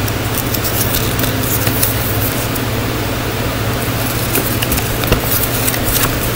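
A folded paper leaflet crinkling and rustling in the hands as it is unfolded, with scattered crisp crackles, over the steady static-like hiss of a fan.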